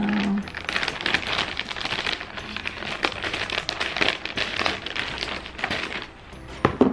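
Plastic mailer bag crinkling and rustling as it is handled and cut open with scissors. There is a sharp click near the end.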